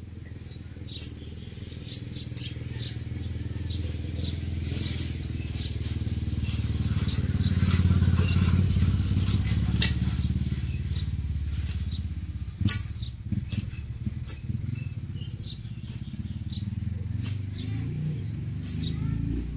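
Petrol brush cutter running as it cuts through weeds and grass, swelling to its loudest about eight seconds in and then easing off, with scattered sharp ticks throughout.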